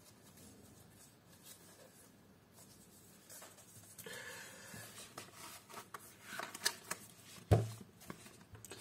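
Hands handling an open plastic Blu-ray case and its disc: quiet at first, then rustling and a few short clicks from about four seconds in, with one sharp knock about seven and a half seconds in.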